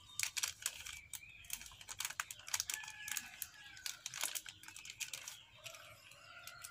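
Plastic snack packet crinkling in the hands as it is torn open and handled: a run of short, sharp crackles.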